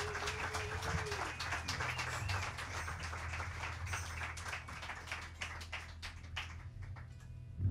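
A small audience clapping, the claps thinning out and dying away over several seconds.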